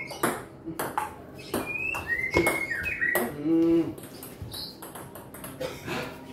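Irregular sharp clicks and knocks, with short bird chirps and a brief low held call a little past halfway.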